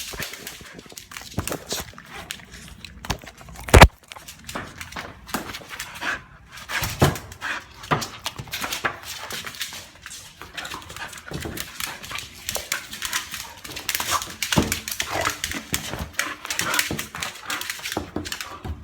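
A dog making small vocal noises amid rustling and handling noise, with one sharp knock about four seconds in.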